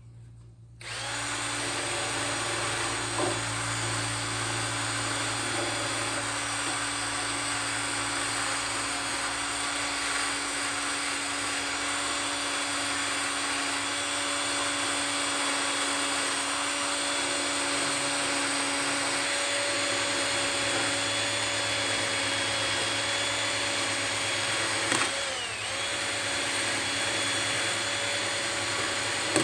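Cordless drill spinning a wire brush over a saw chain's teeth to scrub off oil and sawdust. It starts about a second in and runs steadily, with a brief dip and a click late on.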